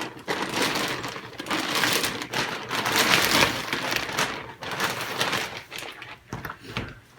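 Plastic bag crinkling and crackling as it is handled and pulled off a skateboard, an irregular run of rustles that fades out near the end.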